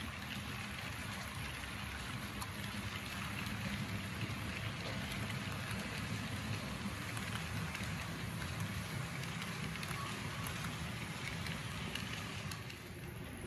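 HO scale model freight train rolling past close by: a steady rushing rumble of the cars' wheels on the track, with faint clicks. It eases off a little near the end as the caboose goes by.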